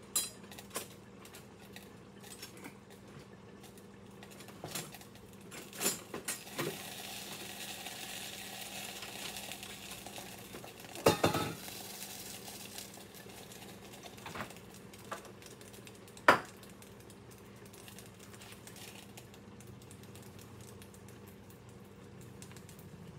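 A spatula clinking and knocking against a pan and other cookware, with a few sharp clatters, the loudest about eleven seconds in and another about sixteen seconds in. A frying sizzle swells up about six seconds in and fades a few seconds before the loud clatters end.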